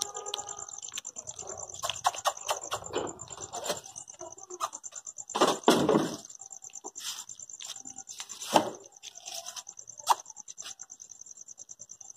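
Steady high chirring of night insects with scattered clicks and rustles. A louder rustling burst comes about five and a half seconds in, and a sharp knock about eight and a half seconds in.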